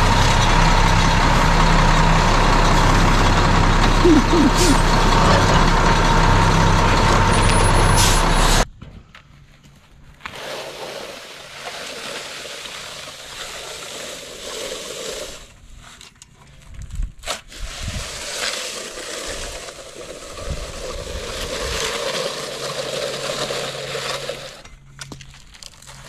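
Diesel engine of a ready-mix concrete mixer truck running steadily and loudly, with a steady whine over the engine note; it cuts off suddenly about nine seconds in, giving way to a much quieter hiss.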